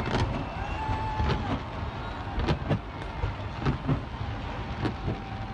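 Fireworks going off: a string of irregular sharp bangs over a steady low rumble.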